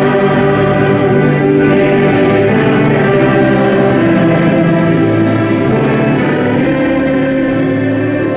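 Mixed choir singing a Danish gospel song, accompanied by a small band of accordion, saxophone and fiddles.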